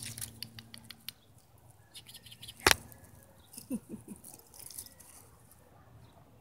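Leaves and twigs rustling and brushing close to the microphone as kittens move through the branches, with one sharp knock a little under halfway through.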